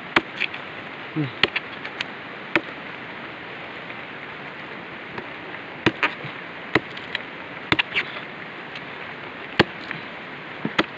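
Blade chopping through a sugar palm's (aren) flower stalk, about nine sharp, irregularly spaced chops, to sever it for sap tapping. A steady hiss runs underneath.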